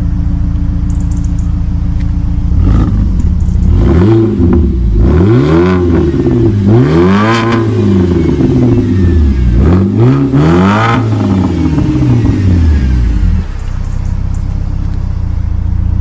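BMW 120i's 2-litre four-cylinder petrol engine, breathing through a custom quad exhaust with the rear silencer deleted, idles while still warming up from a cold start. It is revved several times in rising and falling sweeps, then drops back to idle near the end.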